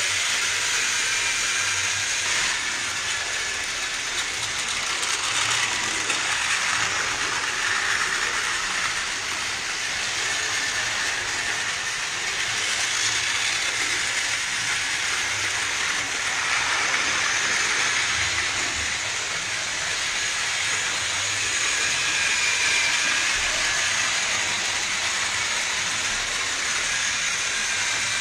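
Battery-powered toy train engines running on plastic track: a steady whirring of small motors and gears with the rattle of wheels on the track, and a faint whine that wavers a little in pitch.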